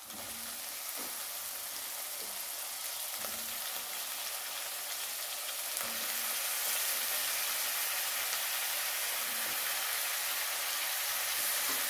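Hot oil sizzling in a kadai as water-soaked brinjal (eggplant) pieces go in with frying onions. The sizzle grows louder over the first several seconds, then holds steady, with a few faint knocks.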